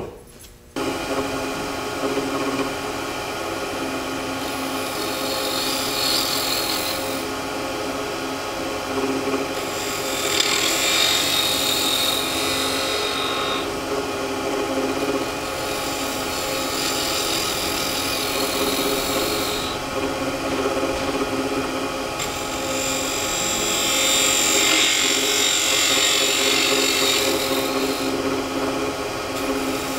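Wood lathe running with a steady hum while a spindle gouge cuts a cove into a spinning wooden spindle. The cutting comes as hissing passes of a few seconds each, about four of them.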